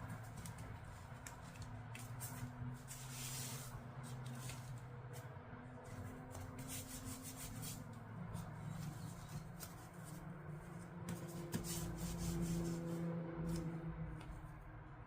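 Scooter parts being handled and fitted together by hand: scattered clicks, taps and rubbing, over a low steady hum.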